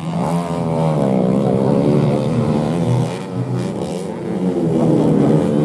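Several racing motorcycle engines revving hard and easing off on a dirt track, their pitches overlapping and swinging up and down. The sound dips briefly about three seconds in.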